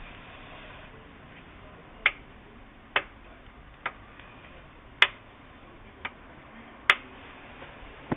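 Sharp single knocks from an Audi 3.0 BBJ V6 engine, six of them at uneven gaps of about a second, over a faint steady background: the knock of pistons in the cylinders.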